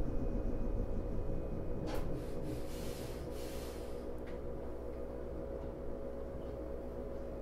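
Inside a 105 series electric train coming to a stop: the running rumble dies away, then a click about two seconds in and a hiss of released compressed air lasting about two seconds, with another click just after. A steady electrical hum from the train's equipment runs underneath.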